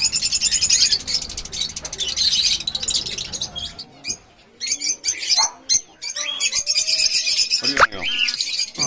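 A young lovebird begging for food while being hand-fed from a syringe: fast, high chirping in several runs, the food-begging call of a hand-reared chick.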